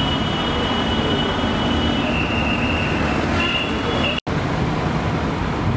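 Heavy truck engines running with a steady deep rumble, a faint high steady tone over it for most of the first few seconds. The sound drops out for an instant about four seconds in.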